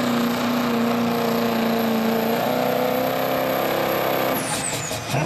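Chevrolet Silverado Duramax diesel pickup engine held at full throttle while pulling a sled. About four and a half seconds in the engine lets off and its note drops away, while a high whine falls steadily in pitch and a few sharp clatters come as the truck stops at the end of its pull.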